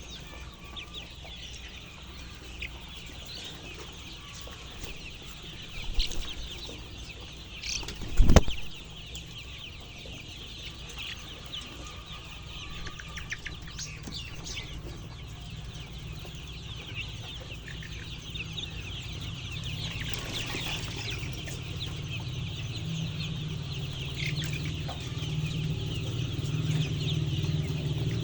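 A flock of chickens clucking and chirping continuously, many short calls overlapping. Two loud knocks about six and eight seconds in, and a low hum growing louder in the last third.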